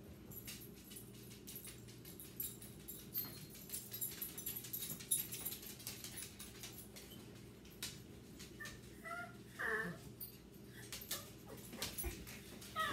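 A small dog whimpering: a few short, high whines about two-thirds of the way through and another at the end, from a dog whose bone another dog has taken. Light clicks and scrapes run underneath.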